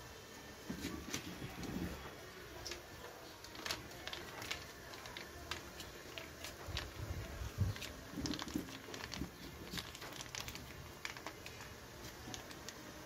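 Buttery sauce simmering in a metal wok: scattered small pops and crackles of bursting bubbles, with a few dull bumps.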